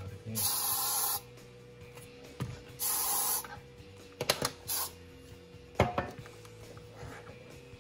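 Two short hissing sprays from an aerosol can, one starting about half a second in and one about three seconds in. These are followed by a few sharp plastic clicks and knocks around four to six seconds in, as the light-up mask's battery controller is handled.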